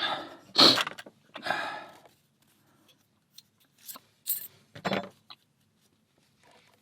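Handling noises of a small lock being taken apart: a loud sharp click or knock about half a second in, a longer hissing scrape around one and a half seconds, then a few lighter metallic clicks and taps.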